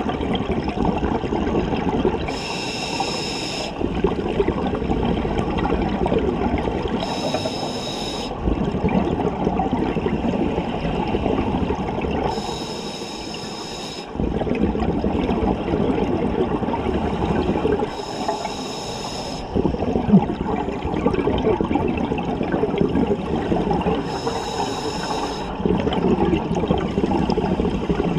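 Scuba diver breathing through a regulator underwater: five hissing inhalations, about every five to six seconds, with the low bubbling of exhaled air between them.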